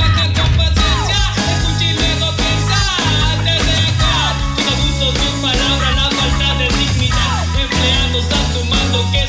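Instrumental break in a rap-rock band song: a steady beat and bass line, with a sliding note that falls in pitch and comes back again and again.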